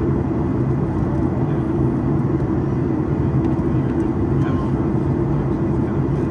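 Steady cabin noise of a Boeing 737 airliner in flight on its descent, heard from a window seat over the wing: a constant low hum of the engines and the rush of air along the fuselage, level throughout.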